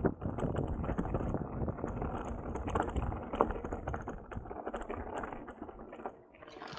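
Mountain bike rolling fast down a loose gravel track: tyres crunching over stones and the bike rattling with rapid clicks over the bumps, getting quieter about five seconds in.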